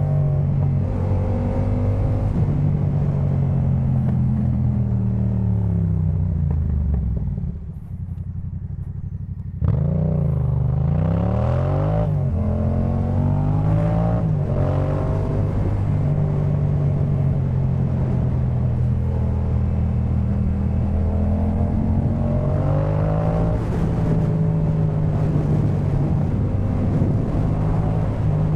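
Yamaha MT-07's 689 cc parallel-twin engine running through a Jeskap K4 full aftermarket exhaust while being ridden, its note rising and falling with throttle and gear changes. About a quarter of the way in it drops quieter for about two seconds, then comes back in abruptly on the throttle.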